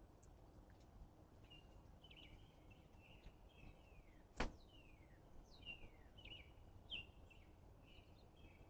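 Faint birds chirping, with short calls and quick falling notes, over a low background hiss. One sharp click comes about four and a half seconds in.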